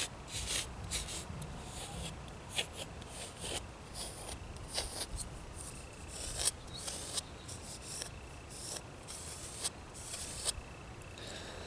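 Gua sha scraper drawn in short, quick strokes over oiled skin of the palm and fingers, a run of irregular scrapes about two a second.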